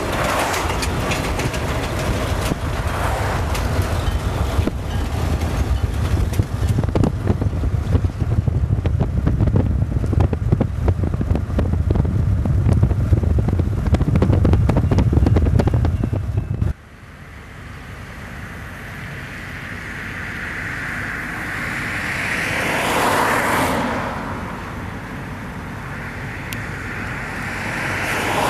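Wind buffeting the microphone over the rumble of a moving car for about the first two thirds. After a sudden cut, a diesel locomotive hauling a train is heard approaching, its sound swelling twice near the end.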